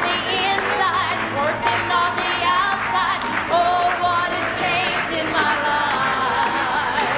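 Live gospel music, loud and continuous, with a woman singing lead with vibrato over a choir and band, and the congregation clapping along.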